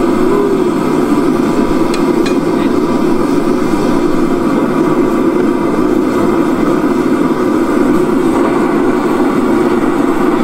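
Gas forge burner running with a steady rushing noise, with a couple of faint clicks about two seconds in.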